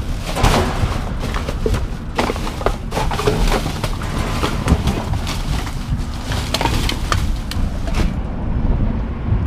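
Plastic trash bags and cardboard boxes being rummaged through by hand in a dumpster: crinkling and rustling with scattered knocks, over a steady low rumble. The crisp rustling thins out about a second before the end.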